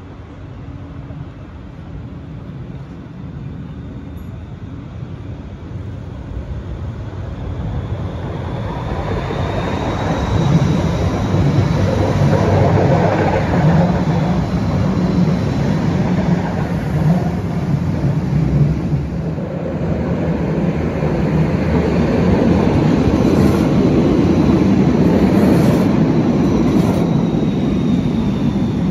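Siemens Combino (Rheinbahn NF8U) low-floor light-rail tram running past close by on the tunnel ramp. The rumble of wheels on rails builds over the first ten seconds and then holds loud and steady, with a faint high whine over it.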